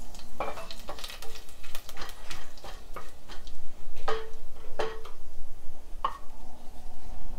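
Whole spices crackling in hot ghee in a nonstick pot, the tempering step. From about four seconds in they are stirred with a wooden spatula that scrapes across the pan, with a few louder strokes.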